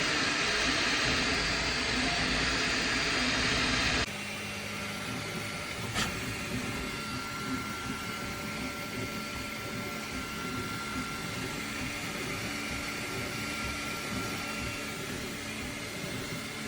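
A FLASHFORGE Adventurer 5M 3D printer running, its fans and motors making a steady whir. A loud rushing air sound stops abruptly about four seconds in, leaving a quieter hum with a faint high whine and a single click a couple of seconds later.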